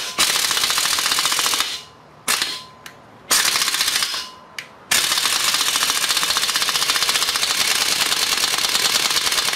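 Pneumatic impact wrench hammering on the top cap bolts of a jackshaft bearing housing in rapid rattling blows: a burst of about a second and a half, a few short bursts, then one long steady run from about five seconds in. The bolts are pretty tight and are not breaking loose.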